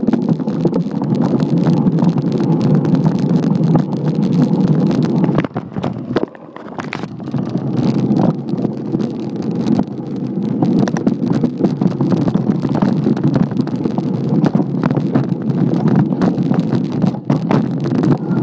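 Mountain bike ridden over a rough forest trail, heard through a phone mounted on the stem: a steady rumbling noise with frequent rattles and knocks as the bike runs over roots and rocks, briefly quieter about six seconds in.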